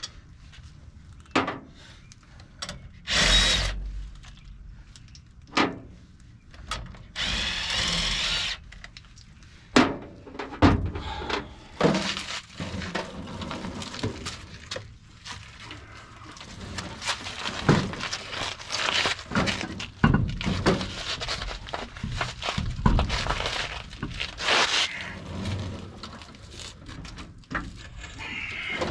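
A handheld power tool runs in two short bursts, one lasting about a second and a longer one a little later, amid repeated metallic clanks, knocks and clatter of tools and parts during wheel work.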